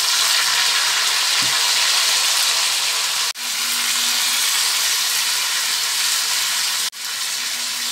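Vegetable chow mein noodles sizzling in a hot kadhai over a high gas flame, a steady frying hiss. The sizzle drops out for an instant twice, about three and a half and seven seconds in.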